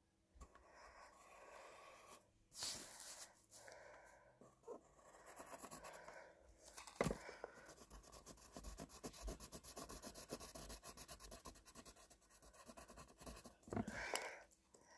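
Faint pencil scratching on paper while sketching, in short strokes, with a run of quick back-and-forth strokes in the second half.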